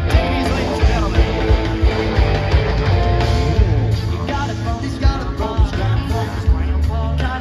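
Rock band playing live, with electric guitars, bass and drums driving a steady beat.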